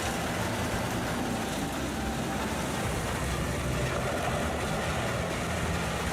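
Heavy machinery running steadily: an engine's continuous low hum under dense even mechanical noise.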